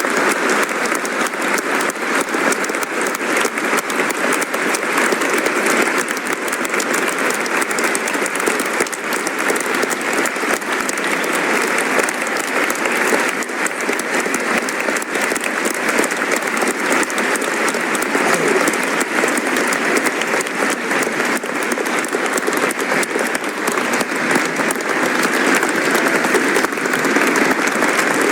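Studio audience applauding: many hands clapping in a dense, steady stream that neither swells nor dies away.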